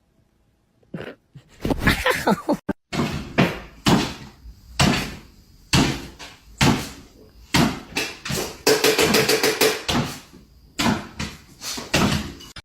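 Irregular run of knocks and bangs, roughly one or two a second, starting about a second in.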